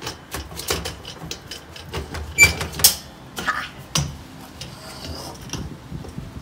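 Stainless steel table frame and perforated shelf parts clattering and knocking as they are handled and fitted together, with two sharper metal clacks in the middle, one ringing briefly.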